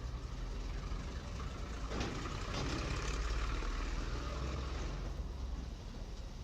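A heavy engine running steadily, with a burst of hiss about two seconds in that fades over a second or so.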